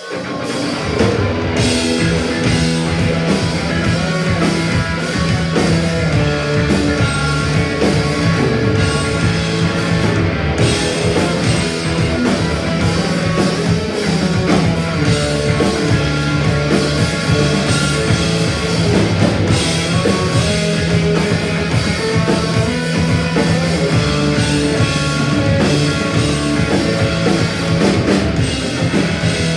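A punk rock band playing live: distorted electric guitars, bass and a drum kit, with no singing. The song kicks in right at the start.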